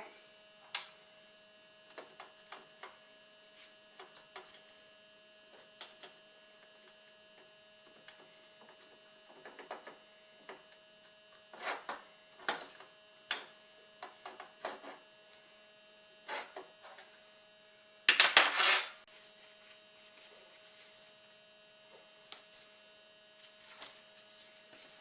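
Small metal parts clinking and knocking as they are handled, over a steady electrical hum. A louder rattle lasting about a second comes near eighteen seconds in.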